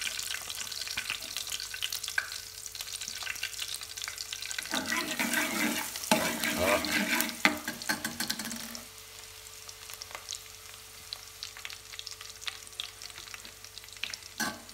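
Chopped garlic sizzling and crackling in hot oil in an aluminium pot, with a spatula stirring and scraping the pan; the stirring is loudest from about five to nine seconds in, after which the garlic settles to a softer sizzle with scattered pops. A faint steady hum runs underneath.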